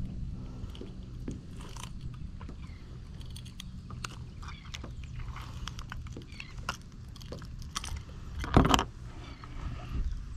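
Steady low hum of a boat motor, with scattered sharp clicks and knocks of gear being handled and one loud thump about eight and a half seconds in.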